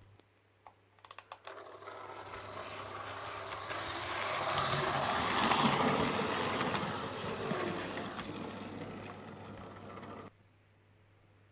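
Model electric locomotive running along the track, its motor and wheels growing louder as it comes near and fading as it moves away, then cutting off suddenly about ten seconds in. A few clicks sound as it starts.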